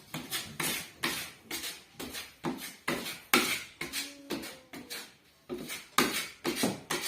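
Steel putty knife scraping joint compound across drywall in quick repeated strokes, about two a second, with a brief pause about five seconds in.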